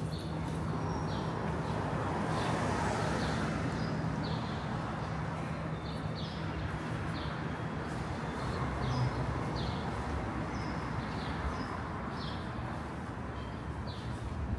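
City street ambience: steady traffic noise with a low, even hum, and faint light ticks repeating about every two-thirds of a second.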